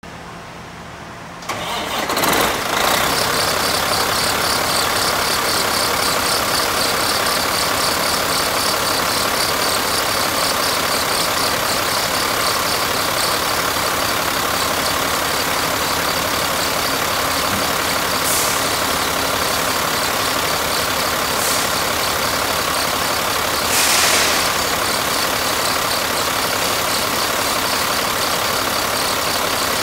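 Caterpillar C13 inline-six diesel truck engine starting up: it catches about two seconds in and settles into a steady idle with a fine regular ticking. A short burst of louder noise comes near the end.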